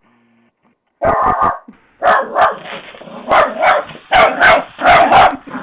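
Lhasa Apso puppy barking rapidly at a toy truck, starting about a second in: a run of about nine loud, sharp barks, the vicious bark it keeps for the truck.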